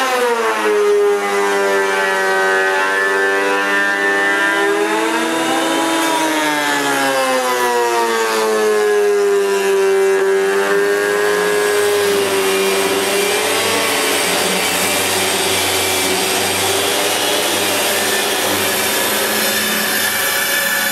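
Jointer cutterhead planing the weathered surface off a thick beam. Its whine sags in pitch as the cut loads the motor and climbs back about six seconds in between passes, then turns to a rougher, noisier cutting sound in the second half.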